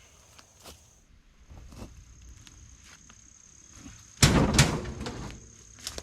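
Two heavy knocks about half a second apart, a little past the middle, over faint scattered clicks and a steady high insect trill.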